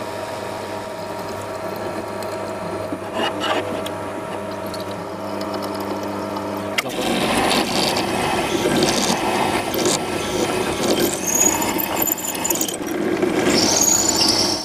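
Drill press running with a steady motor hum, then about seven seconds in the twist drill bites into the aluminium bearing cover and a louder, rough cutting and chip-scraping sound takes over, with a couple of brief high squeals from the bit.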